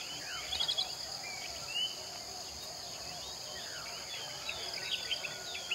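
Outdoor ambience: a steady high hiss with many short chirping calls scattered through it.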